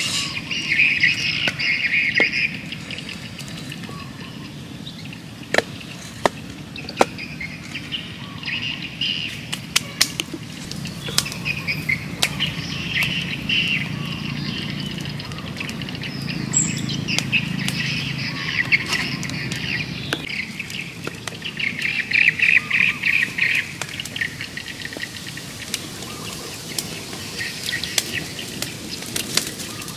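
A small wood fire crackling with scattered sharp snaps, while birds chirp in bursts several times.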